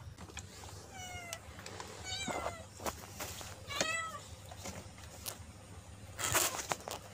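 Domestic cat meowing: three short meows that bend in pitch, followed near the end by a brief burst of noise.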